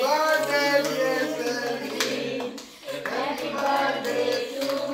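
People singing a birthday song to the beat of hands clapping along.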